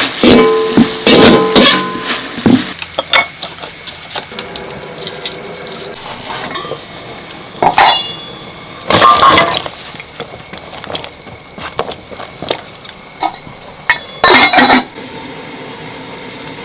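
Kitchen clatter: utensils and pots clinking and knocking now and then. There is a busy run of clinks in the first couple of seconds, then single louder knocks about eight, nine and fourteen seconds in.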